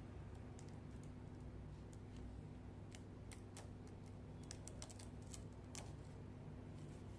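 Laptop keyboard keys being pressed: faint, irregular clicks, a few at a time and in a quick cluster around the middle, over a steady low hum.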